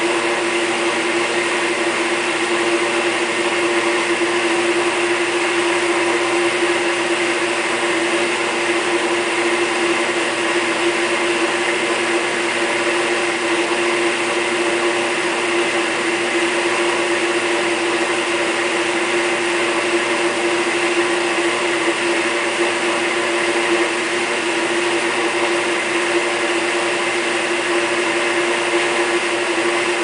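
1949 General Electric RA-949 portable dishwasher running a cycle with its lid closed: a steady, unbroken motor hum with one strong constant tone over an even wash of noise.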